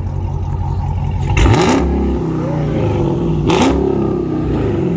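Car engine through a straight-piped exhaust, with catalytic converters gutted and mid mufflers and resonators deleted, idling loudly. It is revved twice, about a second and a half in and again around three and a half seconds, and each time the pitch climbs and drops back to idle.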